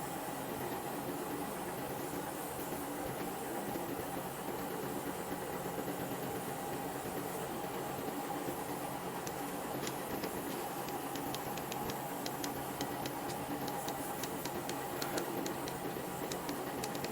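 Repurposed air-conditioner compressor running steadily with an even hum. About halfway through, a patter of faint high clicks joins in.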